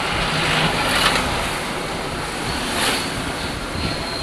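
Maruti 800's small three-cylinder petrol engine running smoothly under a steady rush of wind and road noise. There are no knocks or rattles: the engine has just been tuned.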